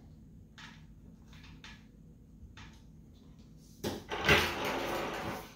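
A few faint clicks of a small hand tool turning the last cover screw into a steel case. About four seconds in, a sharp click and about a second of rustling as the tool is put down among other tools on tissue paper.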